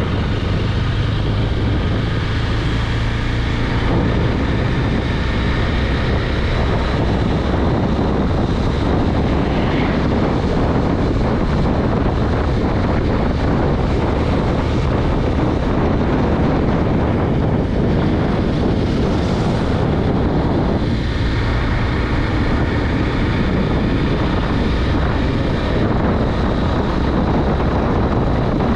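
Wind buffeting a helmet or body-mounted microphone while riding a KTM Duke 390 motorcycle, with the bike's single-cylinder engine running steadily underneath.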